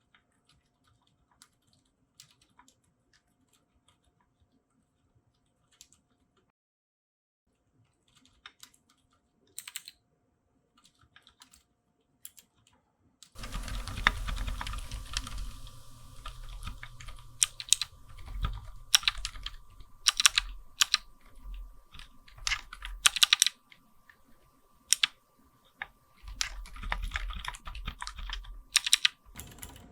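Typing on a Keychron Q6 full-size mechanical keyboard fitted with Durock Daybreak silent linear switches. For the first half the keystrokes are faint and sparse; about halfway in, fast, loud typing starts, with sharp key clicks and a low thump under them.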